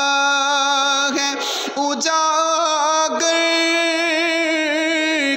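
A man singing a naat (Urdu devotional song) unaccompanied, holding long drawn-out notes with wavering ornaments, with short breaks about one and a half and three seconds in.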